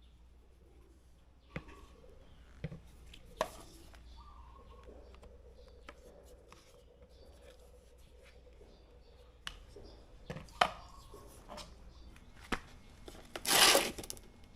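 Scattered clicks and knocks of objects being handled, with a short rush of noise about half a second long near the end, the loudest sound.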